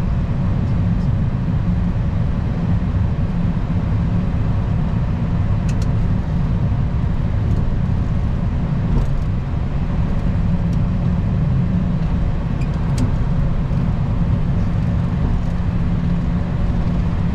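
Steady low rumble on a Boeing 737-800 flight deck after landing, with a few faint clicks.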